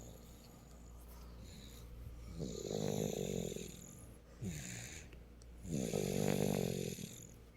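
Very loud snoring: two long snores, each about a second and a half and about three seconds apart, with a softer breath between them.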